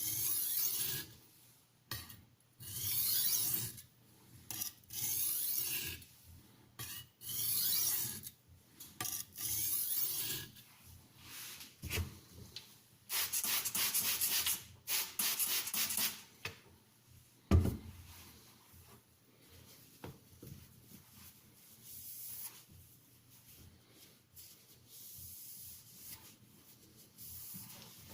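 Knife blade drawn back and forth across a sharpening stone in strokes of about a second each, a gritty scraping with every pass, at light pressure while setting the bevel. The strokes are louder and come steadily in the first half, then fade to softer strokes; two dull knocks sound, about twelve seconds in and again some five seconds later.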